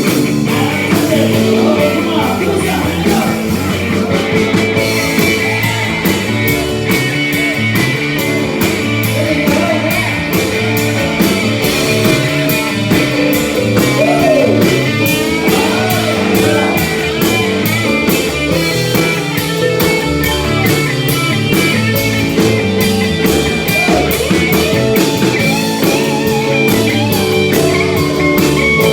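Rock music with electric guitar over a steady drum beat; the sharp, even beat comes in about five seconds in.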